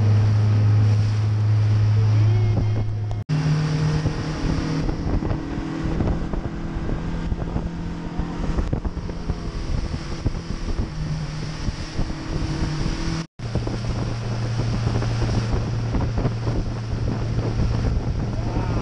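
Boat engine running steadily under wind noise on the microphone. It breaks off abruptly twice, and its pitch is different in each stretch.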